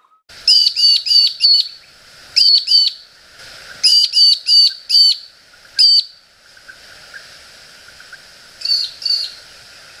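Magpie-lark (peewee) calling: loud, short, sharp notes given in quick bursts of two to four, with pauses between, about thirteen notes in all.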